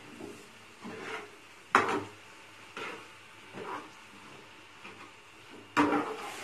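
Metal spatula stirring and scraping saag and minced meat around a frying pan, with softer scrapes between two sharp knocks against the pan, one about two seconds in and another near the end.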